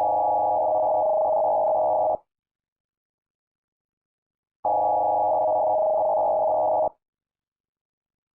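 Electronic alert tone sounding in steady blasts of about two seconds, separated by about two and a half seconds of dead silence. Two blasts fall here, each starting and stopping abruptly.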